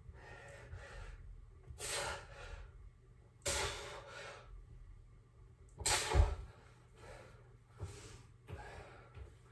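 A man breathing hard during bodyweight dips: three loud, forceful exhalations about two seconds apart, the third the loudest with a low thump. Lighter knocks and footsteps follow near the end.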